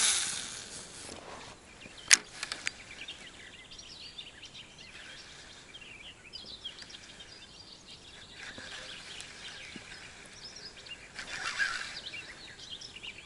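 A baitcasting rod is cast with a short loud whoosh at the start and a sharp click about two seconds in. Then faint birdsong over a quiet background while the lure is retrieved.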